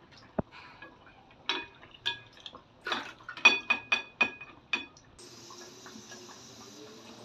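Steel slotted spoon clinking against a steel frying pan, about eight ringing metallic taps, the loudest about three and a half seconds in. From about five seconds in comes a steady hiss of sabudana vadas deep-frying in hot oil.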